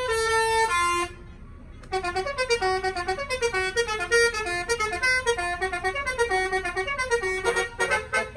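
Basuri horn, a multi-trumpet musical vehicle horn, playing a melody. It opens with a short falling phrase of three held notes, then after about a second's pause plays a fast run of short notes, ending in quick staccato blasts.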